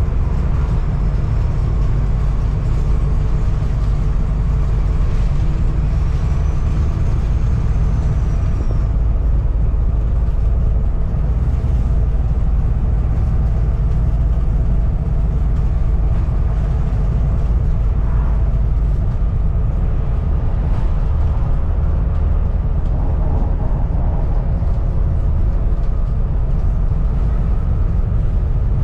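Volvo B7TL double-decker bus's diesel engine running steadily under way, with a rattling body and a high turbo whistle that rises and falls a few seconds in.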